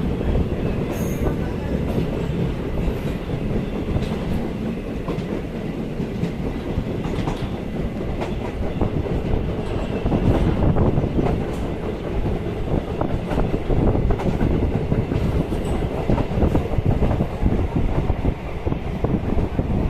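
DEMU (diesel-electric multiple unit) train running along the track: a steady rumble of the coach with the clickety-clack of its wheels, getting louder about halfway through.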